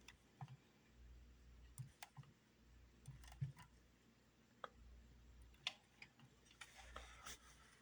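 Near silence with a faint low hum and about a dozen light, irregularly spaced clicks and taps. These are a finger pressing again and again on the Obelisk 5B ghost-hunting device, which will not switch off.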